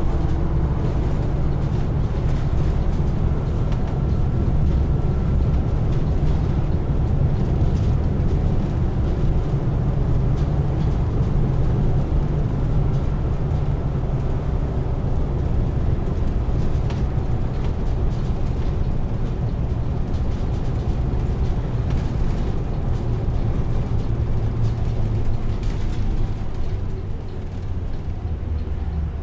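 Diesel engine running steadily, a deep, even rumble that eases slightly in level near the end.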